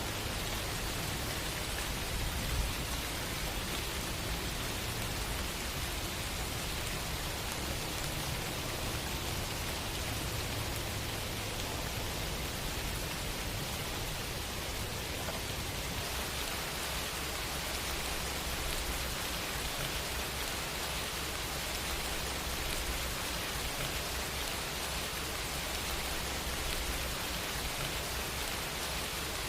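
Steady rain falling, an even hiss with a low rumble underneath; its tone shifts slightly about halfway through.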